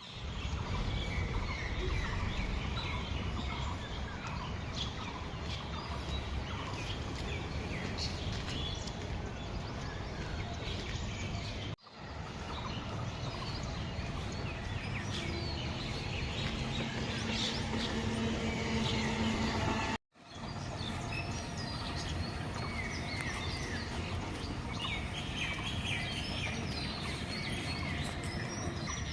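Many birds chirping and calling at once, short overlapping chirps and whistled glides, over a steady low rumble of outdoor background noise. The sound cuts out for an instant twice, about twelve and twenty seconds in.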